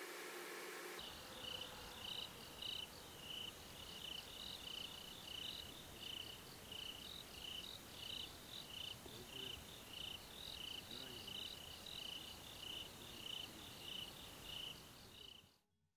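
A cricket chirping at night in a steady rhythm, about two high chirps a second, starting about a second in and cutting off suddenly near the end.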